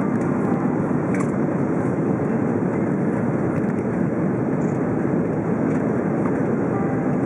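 Steady roar of cabin noise inside an Airbus A330-300 descending on approach: its Rolls-Royce Trent 700 engines and the airflow over the wing, heard from a window seat over the wing.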